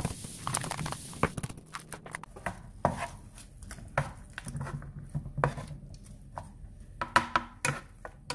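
Wooden spatula scraping and knocking against a non-stick frying pan in irregular strokes while stir-frying diced luncheon meat and spring onions, with a light hiss of oil in the first second.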